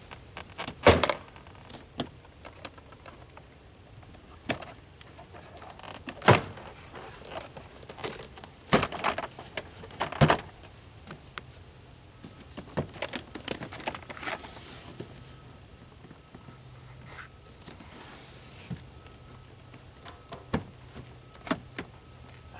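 Door trim panel of a 2008 Subaru Outback being pulled off the door: its plastic retaining clips popping free and the panel knocking against the door. A series of sharp clicks and thunks, loudest about one, six, nine and ten seconds in, with lighter rattles between.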